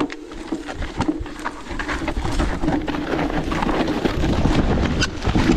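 Electric mountain bike ridden down a rough, steep trail: tyres over rocks and roots, frame and chain rattling in quick knocks, with wind rumbling on the camera mic and getting heavier, and a loud knock near the end.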